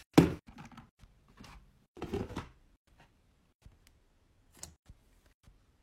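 Blue plastic storage container with its lid being opened: a sharp click just after the start, then a couple of seconds of short handling and scraping noises. Then a few faint clicks as fingers press a clear slime.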